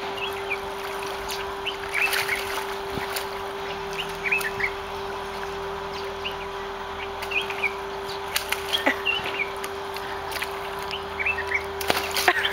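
Small birds chirping in short scattered calls over a steady low hum, with irregular splashing and sloshing as a spotted hyena rolls and kicks in a shallow muddy puddle.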